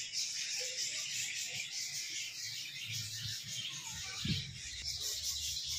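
Steady, shrill outdoor insect chorus with a fine, rapid pulsing, high-pitched and unbroken. There is a brief low thud about four seconds in.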